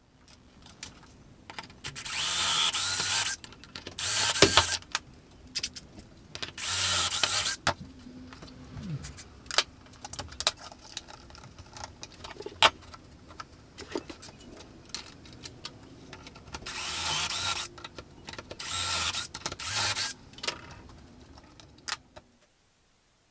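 Metabo cordless drill boring a series of short shelf-pin holes through a Kreg drilling jig into a cabinet panel. There are about six bursts of drilling, each lasting under a second to just over a second, with sharp clicks and knocks between them as the bit and jig are moved. The sound cuts off suddenly near the end.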